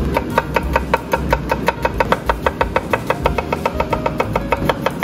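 Kitchen knife rapidly mincing shallots on a cutting board: a fast, even run of chops, about eight a second, over background music.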